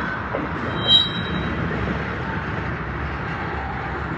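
Freight train of enclosed autorack cars rolling slowly past, a steady rumble of wheels on rail, with a brief high squeal about a second in.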